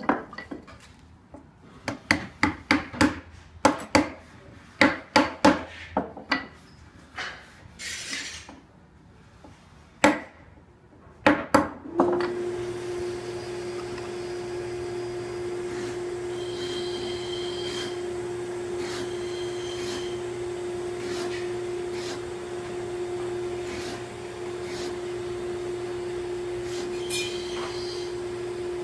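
Mallet striking a chisel to chop into wood, in a string of sharp irregular knocks. About twelve seconds in, a shop machine starts up and runs with a steady hum.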